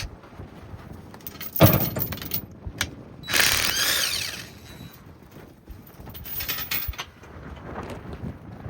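Wrench work on heavy bolts: a sharp metal knock about a second and a half in, then two stretches of ratcheting and grinding mechanism noise.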